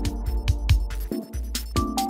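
Electronic background music with a steady beat and a bass line.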